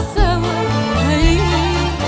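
A woman singing an Arabic song with live band accompaniment, her voice gliding and bending between notes over changing bass notes.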